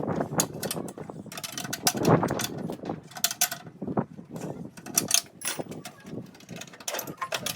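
Hand tools working on metal: irregular clicks and clinks, some like a ratchet wrench.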